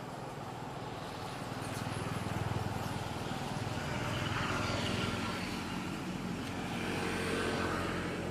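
Motor vehicle engine running close by, a steady low hum with a rushing noise that swells about two seconds in and again near the end, then cuts off suddenly.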